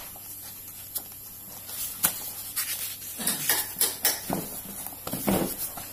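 Pages of a thick paperback book being leafed through by hand: irregular papery flutters and light clicks as the pages are turned.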